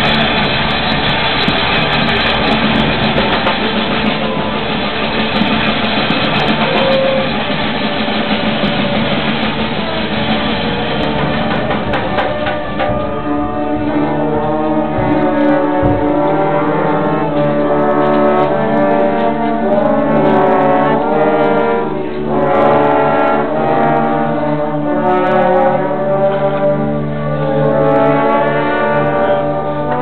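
A live brass street band, sousaphone among the horns, playing loudly. A little under halfway through, the thick full-band sound thins out and the horns' held and moving notes stand out clearly.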